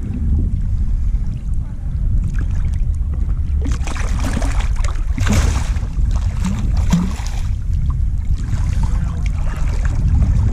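Water splashing in shallow water, mostly from about four to seven and a half seconds in, over a steady low rumble of wind on the microphone.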